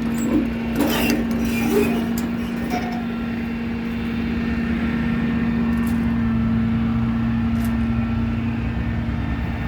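Work truck's engine running steadily with a constant hum. A few sharp clicks and knocks of handled metal parts come in the first couple of seconds.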